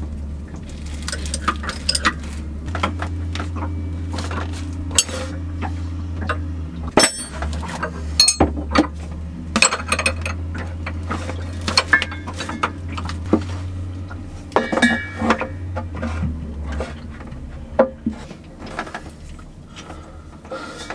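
Irregular metallic clinks and clicks of a spanner and brass gas fittings as a regulator and hose connector are fitted at a gas bottle. A steady low hum runs underneath and stops about three quarters of the way through.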